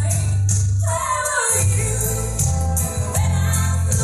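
A song with singing over a heavy bass line and steady percussion; the bass drops out briefly about a second and a half in.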